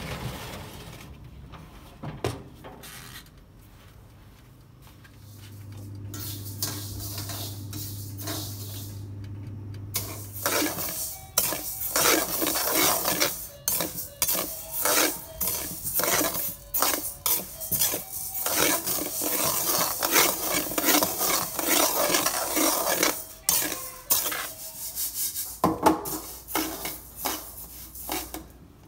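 Metal spatula scraping and stirring dry rice grains around a stainless wok: a fast, continuous run of scrapes and clicks that starts about ten seconds in. Before it, a low steady hum for several seconds.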